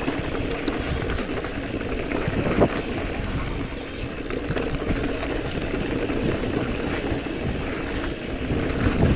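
Giant Trance E+ Pro 2 electric mountain bike riding over a dirt forest trail: a steady rumble of tyres and frame on the ground, with one sharp knock about two and a half seconds in.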